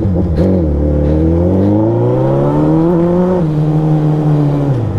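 Suzuki Hayabusa's inline-four engine accelerating hard. Its pitch rises for about three seconds, drops at an upshift, holds steady, then falls as the throttle closes near the end.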